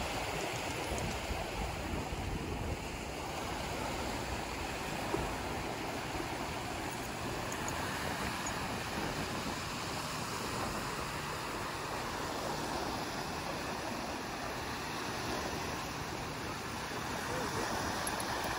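Small waves breaking and washing up on a sandy beach in a steady wash of surf, with wind buffeting the microphone in a low, uneven rumble.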